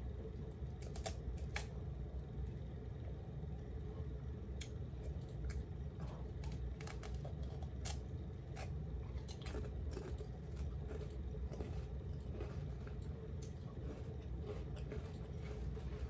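Someone chewing and biting a crunchy snack close to the microphone: irregular small crunches and clicks over a low steady hum.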